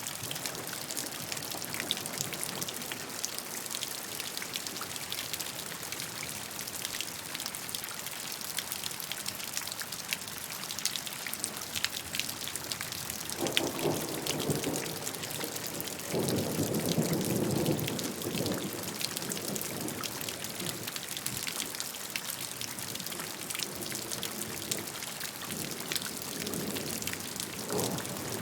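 Steady rain, a continuous hiss with many individual drops striking close by. A few times, around the middle and again near the end, a lower, louder rush swells in for a second or two.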